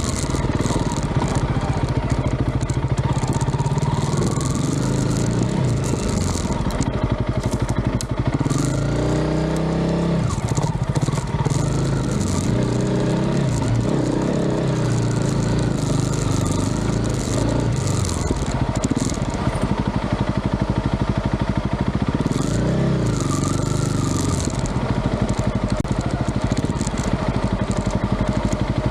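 An engine running steadily, its pitch rising and falling several times as if revved or under changing load.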